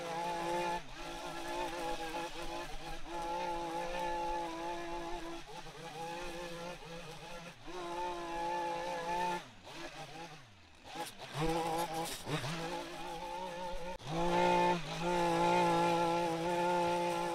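A small engine running fast at a steady pitch. About ten seconds in it drops off with a falling pitch, then revs back up, coming back loudest near the end.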